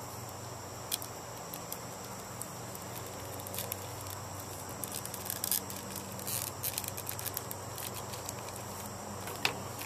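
Foil (Mylar) balloon crinkling in short, irregular crackles as a copper tube is pushed into its neck, the crackles growing denser about halfway through.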